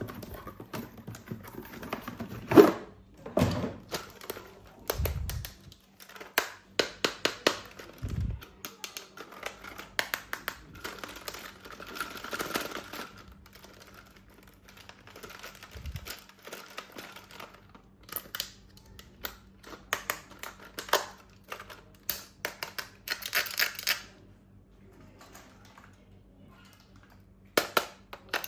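Plastic toys and packaging being handled during an unboxing: irregular clicks, taps and crinkling rustles, with a couple of dull thumps.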